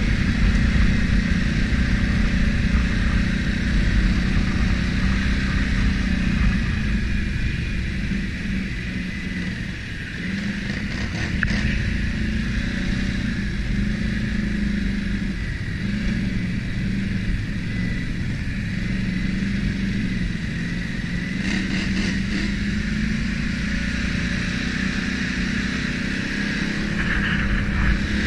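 An ATV engine running under way on a trail, its note steady with small rises and falls as the throttle changes and easing off briefly about ten seconds in.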